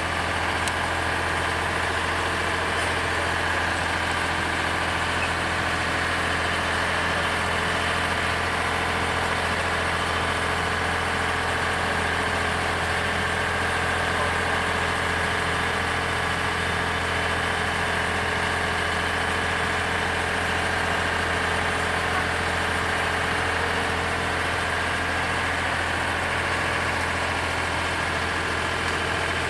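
Engine of a small wooden passenger boat running steadily under way, a constant low drone that holds one even pitch throughout.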